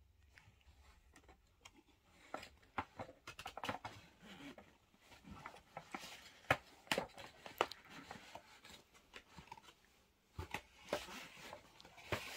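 Handling noises of a cardboard gift box: scattered taps, scrapes and crinkles as a chocolate figure is turned and lifted on it. The noises start about two seconds in, pause briefly near the end, then pick up again.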